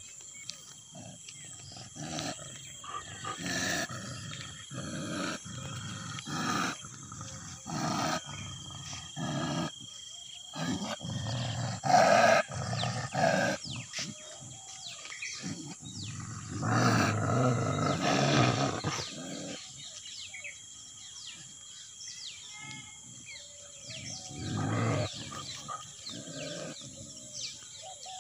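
Free-ranging Indian street dogs growling at each other in an angry confrontation, in a run of short bursts, with the loudest around twelve seconds in and a longer bout from about sixteen to nineteen seconds, then one more burst near the end.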